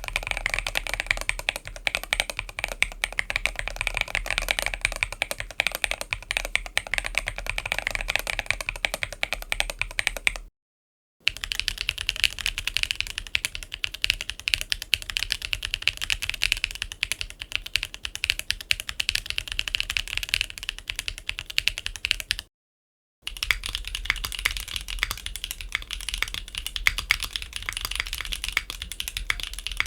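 Fast typing on a mechanical keyboard fitted with Gateron Milky Yellow Pro tactile switches: a dense run of key clacks in three stretches split by two short breaks, the tone shifting a little from one stretch to the next.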